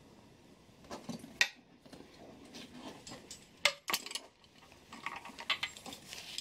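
Handling noise as a fabric cat harness is put on a cat: rustling with a few sharp clicks and knocks, the loudest about a second and a half in and again past the middle.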